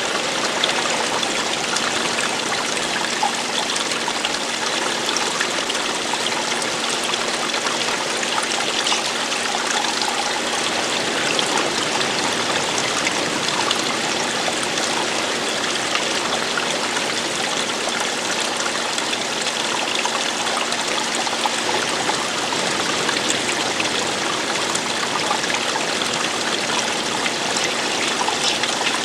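Running water falling and splashing in a steady, even rush.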